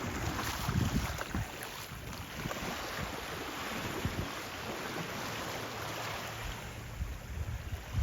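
Gentle sea waves washing onto a sandy beach, with wind buffeting the microphone in low rumbling gusts.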